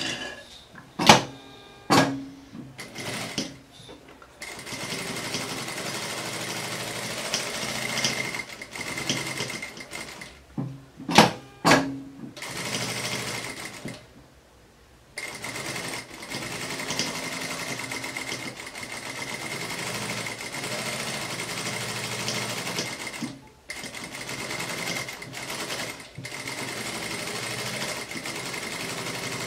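Industrial single-needle lockstitch sewing machine stitching a basting seam around a lined fabric panel, running in stretches of several seconds with a steady high whine from its motor, stopping and restarting several times. A few clicks and knocks come while it is stopped.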